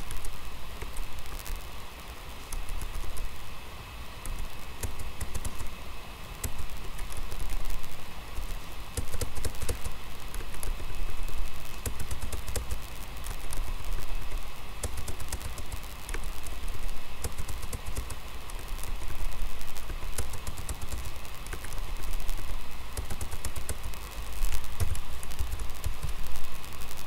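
Computer keyboard typing: irregular keystroke clicks while a config file is edited in a terminal text editor, over a steady low rumble.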